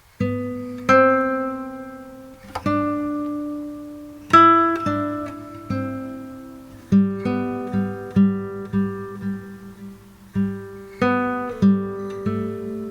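Background music: acoustic guitar playing plucked notes and chords, each ringing out and fading, the picking growing busier about halfway through.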